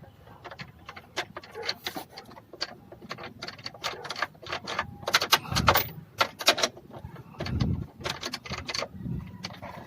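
Hand tools and metal parts clicking and clanking in quick, irregular succession as the bolts of a worn engine mount are worked loose, with a couple of heavier thuds about halfway through.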